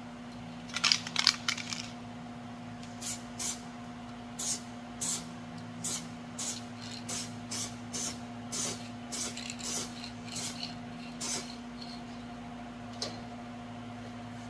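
Aerosol spray paint can: a quick metallic rattle about a second in, then a long run of short spray bursts, roughly two a second, each lasting a fraction of a second.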